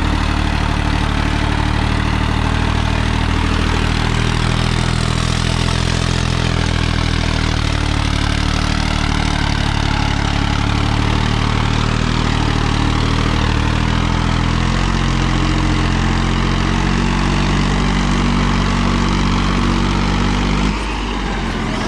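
Farmtrac tractor's diesel engine running hard and steady while pulling a harrow; about a second before the end the engine note drops and the sound gets quieter.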